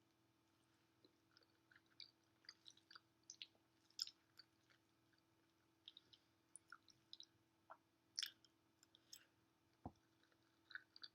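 Quiet, close-miked chewing of creamy macaroni and cheese: scattered faint wet mouth clicks and smacks, with a single low bump near the end.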